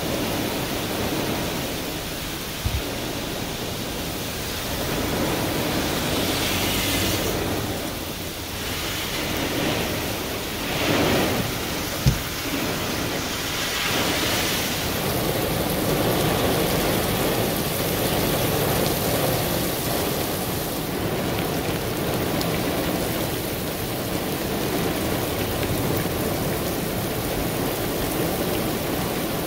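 Heavy thunderstorm rain pouring onto pavement and vegetation in gusty wind, a steady dense hiss with several swells. About halfway through, a pickup truck's tyres hiss past on the flooded road. Two brief sharp knocks stand out, one near the start and a louder one before the truck passes.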